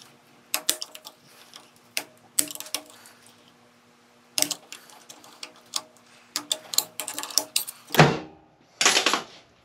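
Snap ring pliers working a steel snap ring off the bearing on a 47RE/48RE transmission's overdrive section: scattered sharp metal clicks and ticks, with two louder, longer scraping noises near the end.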